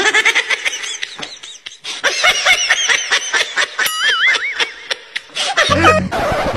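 Comedy sound-effect track of high-pitched, squeaky laughter and snickers, with a short wavering whistle-like tone about four seconds in.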